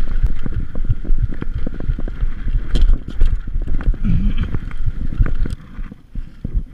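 Mountain bike jolting over a rough dirt trail: a dense, irregular run of knocks and rattles from the bike, with wind noise on the microphone. It gets quieter near the end.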